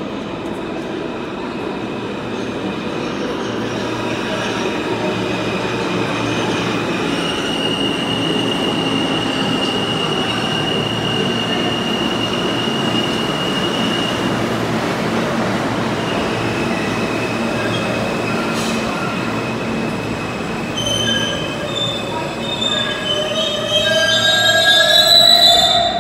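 R160 subway train running into an underground station: a steady rumble of wheels on rail with a long high wheel squeal. Near the end several squealing tones rise and grow louder as the train slows to a stop.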